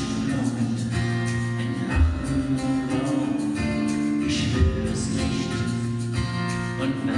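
Live acoustic song: two acoustic guitars playing with a man singing. A deep thump sounds about every two and a half seconds.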